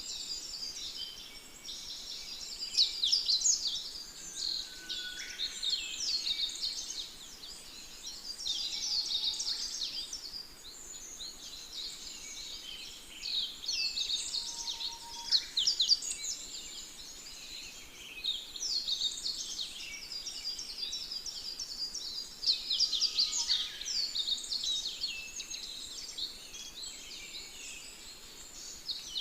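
Many birds chirping and singing together, rapid high chirps coming in busy bursts every few seconds, with a few short, fainter whistles in between.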